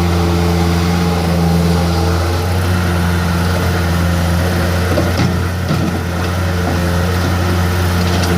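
Bobcat S130 skid steer's diesel engine running steadily, with a few short knocks and rattles about five to six seconds in.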